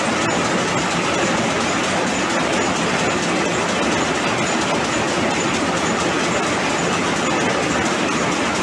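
High-speed rapier loom with a Jacquard head running, a loud, steady, fast mechanical clatter.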